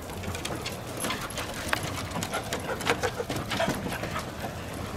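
Dogs' claws tapping on a wooden deck as several dogs trot across it: quick, irregular clicks.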